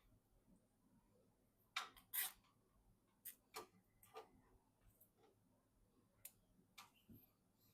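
Light clicks and taps of PC parts being handled during assembly, about seven in all, the loudest two close together about two seconds in.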